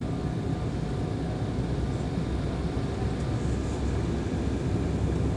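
Steady low rumble of a jet airliner's engines and rushing air, heard inside the passenger cabin as the plane, flaps extended, passes low over the runway on landing.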